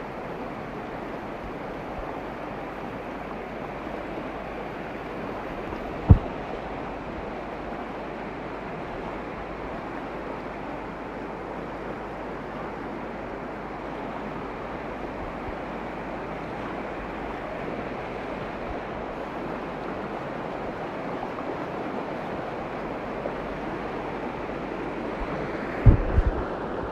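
Floodwater rushing strongly in a steady, even wash. There is one sharp low thump about six seconds in and a couple more near the end.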